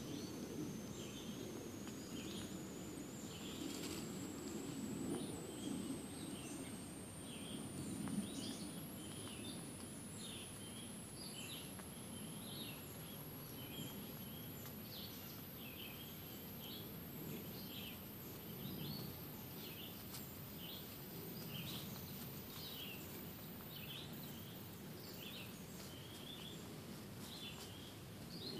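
Woodland ambience: short high chirps repeating about once or twice a second, over a low rustling rumble that is louder near the start. A faint thin whine slowly rises in pitch throughout.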